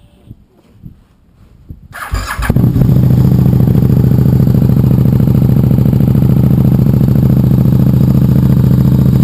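A 2013 KTM RC8's V-twin engine, fitted with a Jester aftermarket exhaust, being started: the starter cranks briefly about two seconds in, the engine catches and then idles loudly and steadily.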